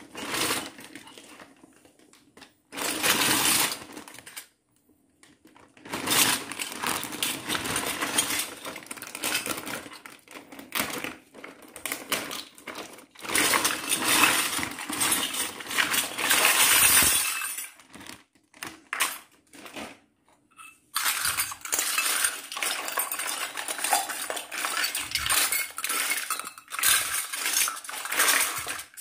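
Clear plastic bag crinkling as a load of miniature stainless-steel and plastic toy pots, pans and dishes is shaken and tipped out, the little steel pieces clinking and clattering against each other and onto a tabletop. The handling comes in long irregular stretches with two short pauses.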